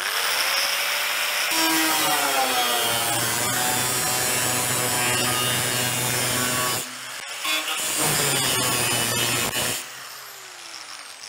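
Angle grinder with a thin cut-off disc spinning up and cutting a relief cut into the sheet-steel cab panel of a 1951 Chevy truck. The cut drops off briefly about seven seconds in, then cuts again, and the grinder is switched off near the end, its pitch falling as it winds down.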